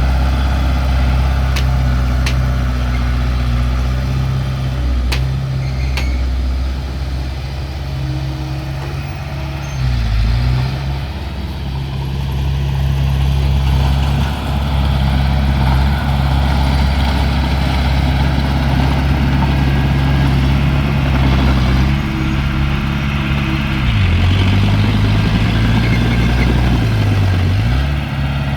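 Heavy earthmoving machine's diesel engine running steadily, its pitch dipping briefly a few times. A few sharp clicks or knocks in the first several seconds.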